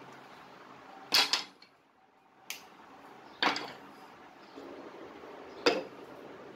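Wooden axe-handle pieces handled and set down on a sheet-metal bench top: four sharp knocks, the loudest about a second in and near the end.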